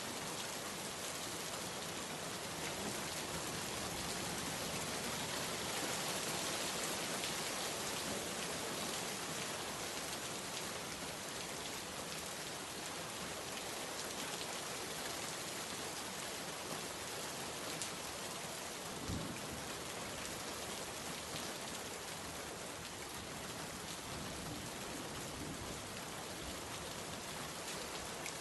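Steady heavy rain falling on surfaces, a continuous even hiss of drops, with one short dull thump about two-thirds of the way through.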